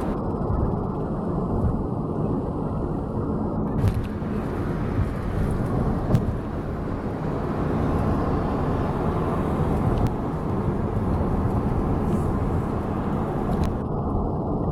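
Steady road and engine noise inside a moving car's cabin, with a low rumble and a couple of faint clicks.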